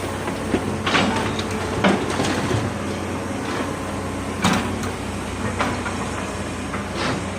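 Heavy diesel earthmoving machinery running with a steady engine drone, broken by a few short knocks or clanks.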